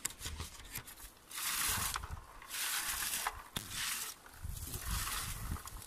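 Plastic berry-picking scoop combed through low blueberry bushes: rustling, scraping strokes through leaves and twigs, in about three bursts with small clicks and snaps between them.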